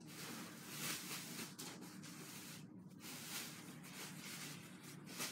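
Rustling and rubbing of fireworks packaging being handled and shifted around on the floor, with a brief pause a little under halfway through.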